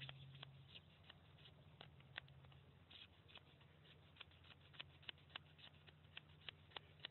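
Faint, irregular scraping clicks of a metal blade shaving a magnesium fire-starter block, building up a pile of magnesium shavings as tinder.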